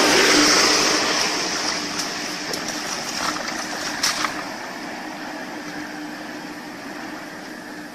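Muddy water splashing and sloshing as hands grope about in a shallow flooded field, loudest at the start and dying down, over a steady low hum with a few small knocks.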